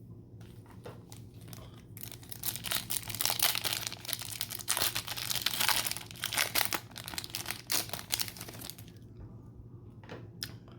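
A trading-card pack wrapper being torn open and crinkled in the hands, a dense crackling that starts about two seconds in and dies away about nine seconds in, with a few small clicks before and after.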